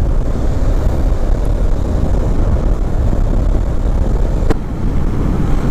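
Honda CB500X motorcycle riding at road speed: steady wind rush over the microphone with the engine and tyres running underneath. A single sharp click about four and a half seconds in.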